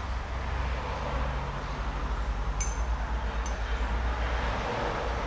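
Steady background hiss with a low hum, and light clinks of a spoon and ceramic dishes twice near the middle.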